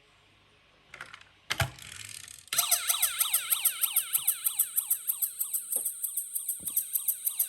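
Toy emergency-vehicle minicar's electronic siren switching on about two and a half seconds in, a fast yelp of falling sweeps about four times a second with a shrill pulsing overtone. Before it, a few light clicks and a single knock.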